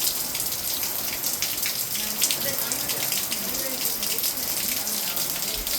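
Heavy hurricane rain pouring down: a steady hiss with many drops striking close by.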